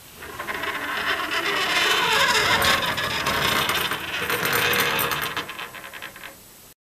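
A horror sound effect of dense rattling and scraping, full of small clicks. It swells over the first couple of seconds, fades after about five seconds and cuts off suddenly near the end.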